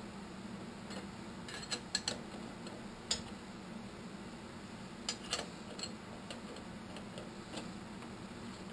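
Scattered light metallic clicks and taps from a metal workpiece being handled in a milling-machine vise, a small cluster about two seconds in and another pair about five seconds in, over a steady low hum.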